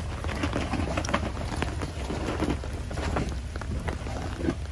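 Jeep Wrangler crawling slowly over rocks: a steady low engine rumble with scattered clicks and crunches of the tyres on wet stones and gravel.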